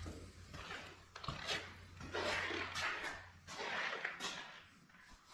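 Soft shoe scuffs on a concrete floor at a walking pace, about seven steps, over a faint low hum that fades out about midway.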